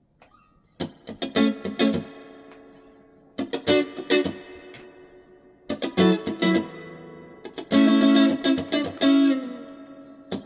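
Fender Stratocaster electric guitar played solo and unaccompanied, raw, recorded through a mobile phone. Four short phrases of picked notes and chords, each struck and then left to ring and fade before the next begins.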